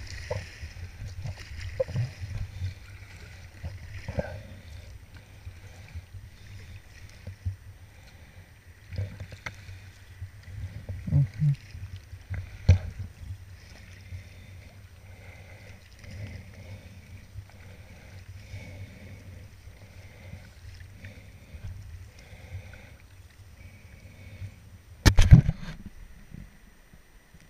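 Kayak paddle blades dipping and splashing in the water alongside a sea kayak, stroke after stroke, with a loud knock near the end.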